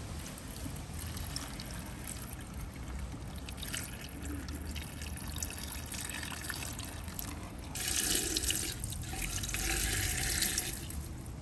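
Water poured in a thin stream from a copper jug into an aluminium Afghan kazan, trickling and splashing onto the raw vegetables and meat inside. The pouring grows louder for about three seconds near the end.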